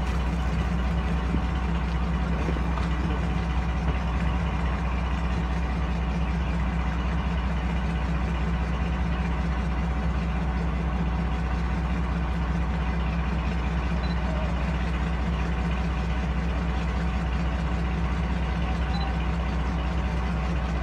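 Diesel locomotive engine idling: a steady, unchanging low hum.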